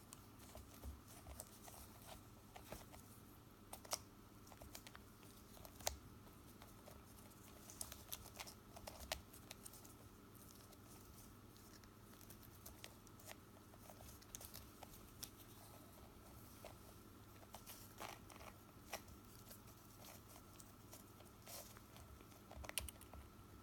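Faint, scattered light taps, scratches and rustles of a three-week-old kitten batting at and chewing a cardboard-tying string, with a few sharper clicks, over a faint steady hum.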